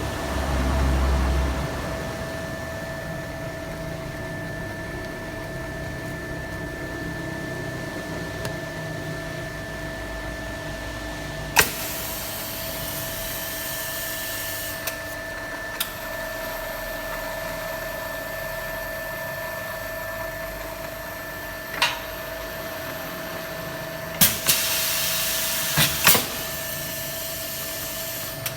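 Japanese automatic pipe-cutting machine running with a steady hum, broken by sharp clicks and two hissing spells of a few seconds each, fitting its air-operated stop.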